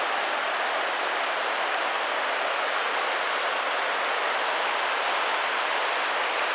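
Steady rush of shallow river water spilling over a low weir and churning below it, an even hiss with no breaks.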